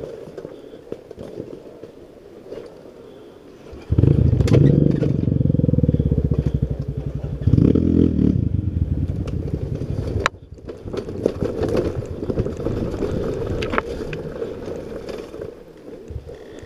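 KTM EXC 250 single-cylinder two-stroke dirt bike engine running on a muddy trail: it runs low at first, then from about four seconds in it is opened up and pulls loudly for about six seconds, drops off suddenly, and runs on more quietly. Clicks and crackles of brush and dirt scraping under the bike run through it.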